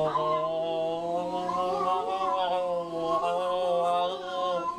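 A man's voice drawing out one long, held note with a slowly shifting vowel, broken briefly about three seconds in: a mock cat yowl.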